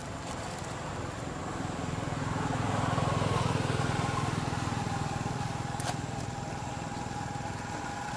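A motor vehicle passing by, its engine rumble swelling to a peak about three seconds in and then fading away.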